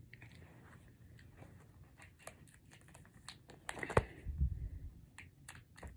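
Handling noises as the boy shifts under a blanket and moves cards: scattered small clicks and soft rustles, a knock about four seconds in, then a short burst of rustling.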